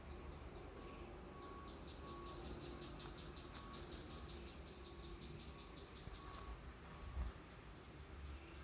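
A cricket-like insect trilling faintly: a high-pitched, rapid pulsed chirp that starts about a second and a half in and stops after about five seconds, over a low background rumble.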